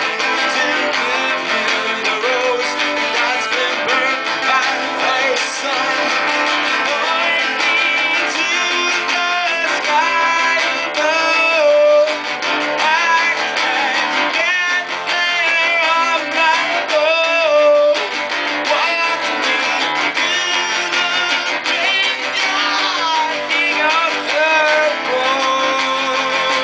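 Acoustic guitar strummed live, with a singer's voice carrying the melody over it from about a third of the way in.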